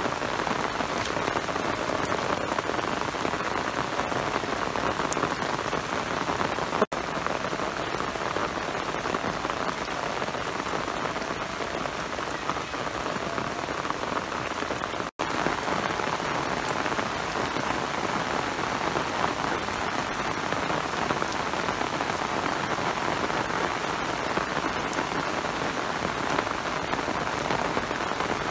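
Steady rain falling, an even hiss with no change in strength. It cuts out for an instant twice, about 7 and 15 seconds in.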